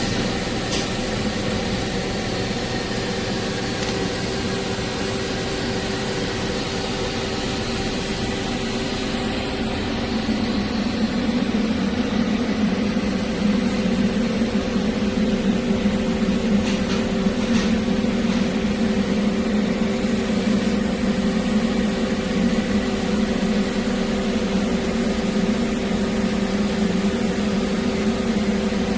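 Steady hum and hiss of TIG welding on a carbon-steel pipe, with the welding machine and shop ventilation running, growing louder about ten seconds in.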